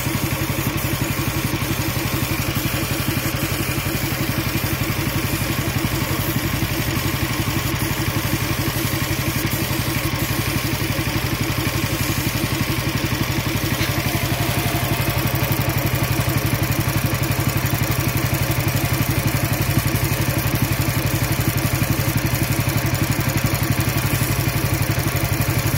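Air compressor's small engine running steadily with a fast, even chug while it feeds a paint spray gun.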